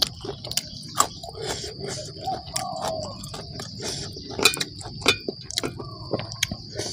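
Close-miked eating sounds of a man eating spicy chicken-feet salad with his fingers: chewing, lip smacks and sharp clicks, with small clinks of fingers on the steel tray. A steady high insect drone sounds underneath.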